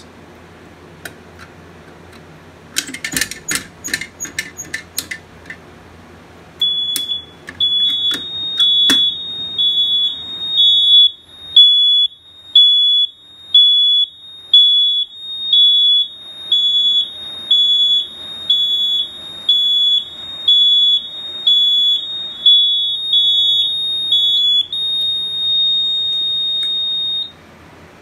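A few sharp mechanical clicks from the Edwards dual-action pull station being key-activated, then an EST fire alarm horn sounding its high-pitched alarm tone. The horn pulses a little faster than once a second, turns steady for a couple of seconds near the end, then cuts off suddenly.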